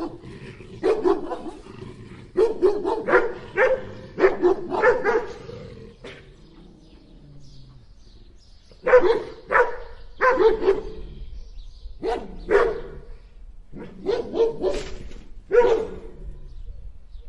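Two large dogs barking in quick runs of several barks, with a pause of about three seconds near the middle before the barking starts again.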